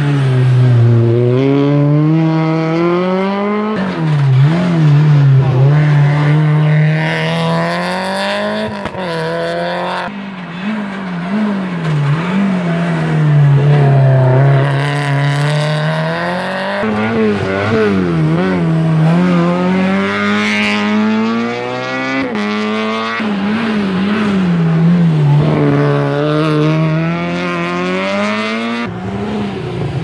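Rally car engines revving hard through a tight hairpin, several cars in turn. Each drops in pitch braking into the bend, then climbs sharply as it accelerates away through the gears.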